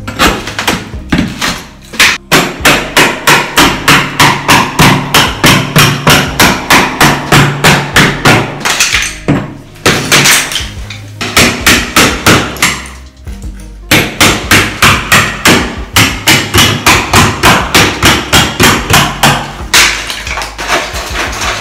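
Claw hammer striking old ceramic wall tile, chipping it off the wall in rapid blows about four a second, with two short breaks about nine and thirteen seconds in.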